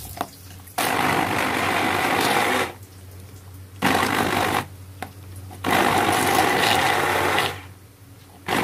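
Stick hand blender run in three short bursts with pauses between, its motor whirring as it purees a chili spice paste in a plastic jug.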